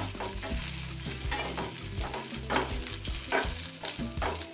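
Chopped onion and capsicum sizzling in hot oil in a pan on high flame as they are stirred, the utensil scraping the pan about twice a second.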